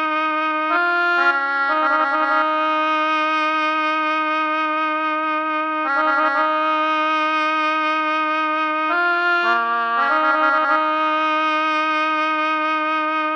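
Background music: a reedy held note with short runs of changing notes a few times.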